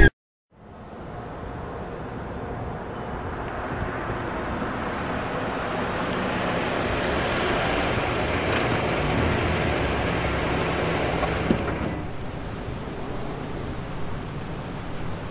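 A car drives up at night, its engine and tyre noise swelling over several seconds and holding steady. A brief knock comes just before the noise cuts off about twelve seconds in, leaving a quieter steady hiss.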